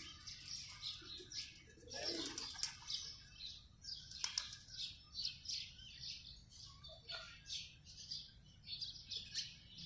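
Small birds chirping continuously in quick, short, high-pitched calls, several a second.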